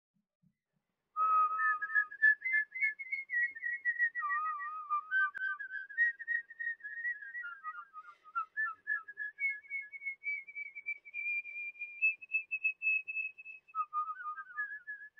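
A tune whistled alone, without accompaniment. It starts about a second in and moves through held notes and quick wavering runs, reaching its highest held stretch just past the middle.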